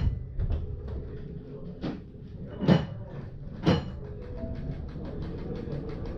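ČSD class EM 29.0 rack-railway electric train heard from its cab: a few separate loud clanks, then, as it starts to pull away, a steady hum with rapid, even ticking at about five a second.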